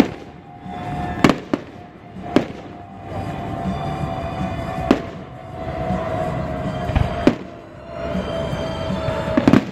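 Aerial fireworks shells bursting in the sky: about seven sharp bangs at irregular intervals, two pairs in quick succession, over a steady background hum.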